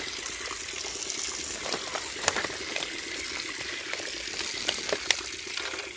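Water gushing steadily from a hose onto a heap of netted fish, with a few short sharp splats and clicks mixed in.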